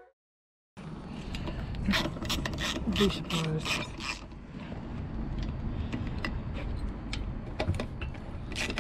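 Socket ratchet clicking in short runs as it works the bolts on a siren's metal shutter control box, with some rasping metal-on-metal rubbing. It starts about a second in, after a brief silence.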